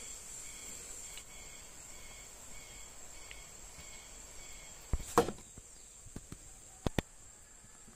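Steady high-pitched drone of crickets. A few sharp knocks about five and seven seconds in come from a bamboo fishing rod being handled on wooden planks.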